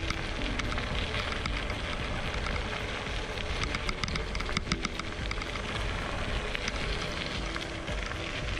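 Xiaomi M365 Pro electric scooter rolling over a gravel path: its 8.5-inch tyres crunching and crackling on the loose stones, with the scooter rattling over bumps and steady wind noise.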